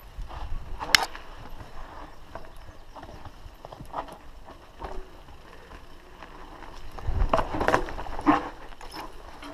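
Downhill mountain bike rattling and clattering over a rough dirt trail, tyres rumbling on the ground. A sharp knock comes about a second in, and a run of louder clunks and knocks a little past the middle to near the end.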